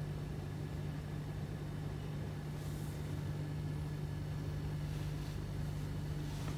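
Steady low mechanical hum of room background, with a couple of faint, brief soft rustles about three and five seconds in.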